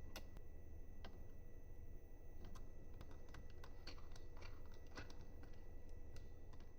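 Irregular light clicks and taps of small hardware and parts being handled over a faint steady hum.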